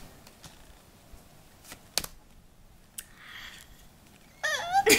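Uno playing cards being handled and laid down: a few sharp clicks, then a soft rustle. Near the end, a girl's voice with a high, gliding pitch starts.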